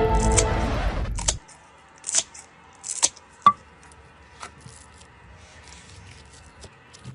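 Background music that stops about a second and a half in, followed by a few scattered sharp clicks and crackles from slime being handled.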